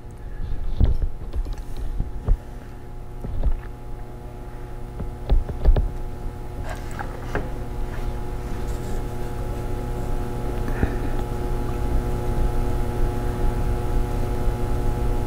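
A steady low hum with a few faint steady higher tones, broken by scattered low thumps and clicks, most of them in the first six seconds.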